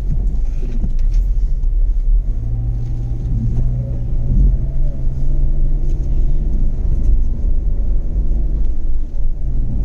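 Car driving uphill: a steady low rumble of engine and road noise, with the engine's hum growing stronger from about two seconds in and easing off around seven seconds.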